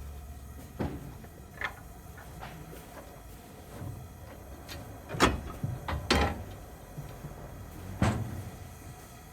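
Steam crane working, its machinery giving irregular metallic clanks and knocks over a low steady rumble; the loudest knocks come about five, six and eight seconds in.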